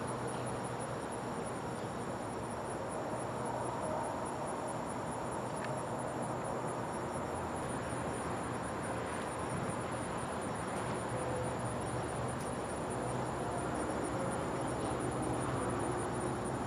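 Insects trilling: a continuous high, rapidly pulsing song over a faint steady outdoor hiss.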